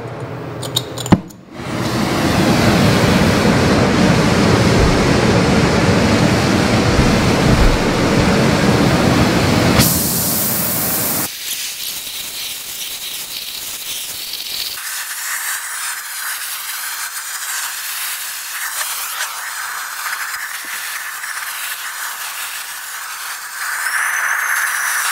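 Oxy-acetylene torch flame hissing as it preheats a cast-iron brake drum before tack welding. After a few clicks about a second in, the flame runs loud and steady, then drops about eleven seconds in to a quieter, higher hiss.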